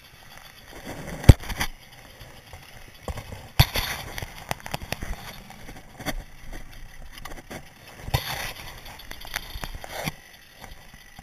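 Camera housing being handled on a motocross bike that is not running: scattered knocks and rubbing, the loudest a sharp knock just over a second in, with rough scraping bursts about three and a half and eight seconds in.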